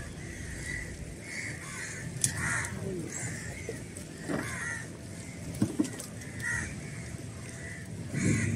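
Crows cawing over and over, with a few short sharp knocks in between.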